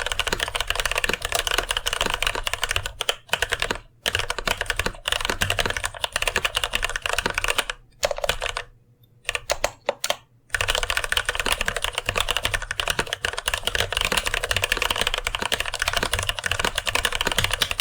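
Rapid typing on a mechanical keyboard with TTC Gold Pink linear switches in a brass plate, a dense clatter of keystrokes. The typing stops twice briefly, the longer pause a little past halfway, then resumes.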